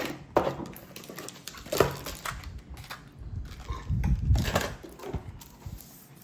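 Handling of a trading-card box and foil booster packs: a few short, sharp knocks and rustles, the loudest cluster about four seconds in.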